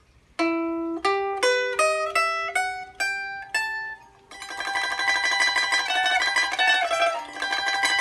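Liuqin, a small Chinese pear-shaped lute with steel strings, picked with a plectrum: about eight single notes, each ringing out, then, after a brief pause about four seconds in, a quick melody of rapidly repeated picked notes.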